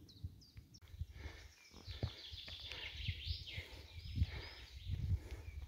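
Songbirds chirping and trilling in a quick, busy chorus over the irregular low thuds of a hiker's footsteps and a handheld phone moving as he walks.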